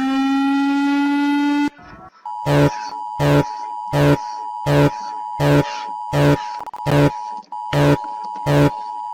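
Emergency alert alarm tones. A long buzzing tone cuts off just under two seconds in. After a brief gap, a new alarm starts: short buzzing blasts, about four every three seconds, over a steady high tone.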